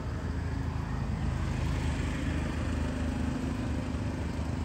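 A motor vehicle engine running with a steady low rumble, a little louder around the middle.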